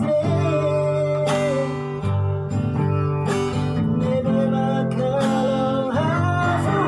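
A man singing long held notes over a strummed acoustic guitar, with chords struck about once a second.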